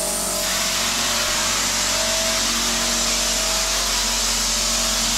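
Manual drywall texture hopper gun spraying, a steady loud hiss of compressed air blowing texture mud onto the wall, growing stronger about half a second in. A small air compressor hums steadily underneath.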